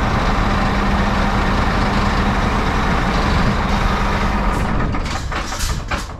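Scania lorry's diesel engine running steadily with a low hum, heard from the cab with the window open. Several short air hisses come near the end.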